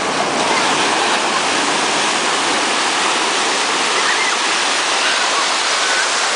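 Ocean surf breaking and washing over the shallows: a steady, loud rush of foaming water.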